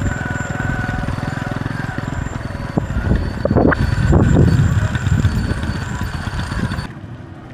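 Honda Pridor 100 motorcycle's small single-cylinder four-stroke engine running while the bike is ridden slowly. The revs rise about halfway through, and that is the loudest part. Near the end the sound drops suddenly to a lower level.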